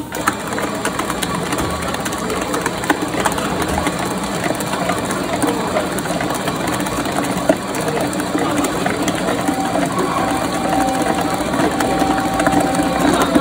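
Commercial planetary stand mixer running, its motor and gears going steadily while the beater churns a bowl of blueberry buttercream, with a constant rattle of small clicks. A thin steady whine comes in for a few seconds near the end.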